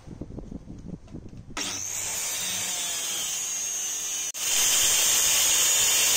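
A power tool running in a furniture workshop, a steady hissing whine. It starts about a second and a half in after some low knocking, cuts out for an instant a little past four seconds and comes back louder.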